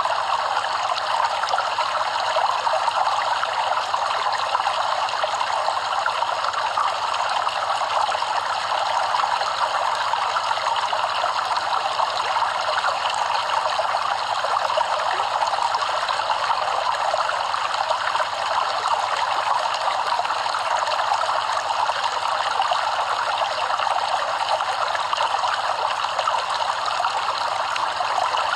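Stream water flowing and trickling over rocks: a steady, even rush of running water.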